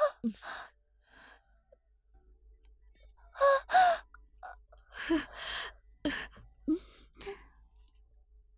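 A woman crying out and gasping in the pains of childbirth labour, in strained pitched cries that come in groups. The loudest are about three and a half seconds in, followed by shorter gasps that die away near the end.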